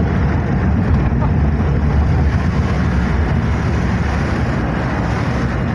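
Steady rumble of a vehicle's engine and tyres pushing through floodwater, heard from inside the cabin.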